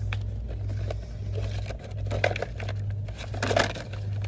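Rustling and light clatter of store items being handled and sorted, in scattered short bursts with the two busiest about halfway through and near the end, over a steady low hum.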